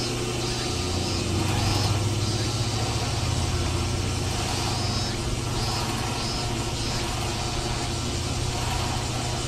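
Small motor of a DIY mini tractor running steadily, a constant low hum with a faint high chirp recurring about once a second.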